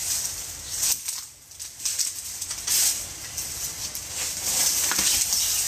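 Dry leaves and twigs rustling and crackling in uneven bursts as brush is handled, with a brief lull about a second in and a few sharp snaps near the end.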